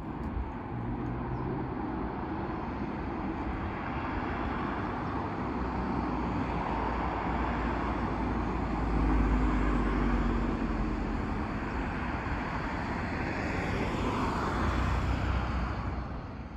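Road traffic noise: a steady rumble of passing vehicles, swelling about halfway through and again near the end.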